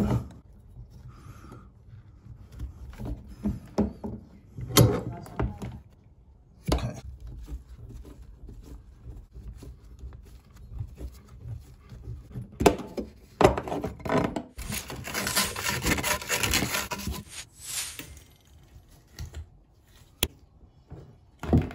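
Hands and tools working on copper water pipes under a bath: scattered knocks and clicks with rubbing and scraping, and a stretch of dense scraping about two-thirds of the way through.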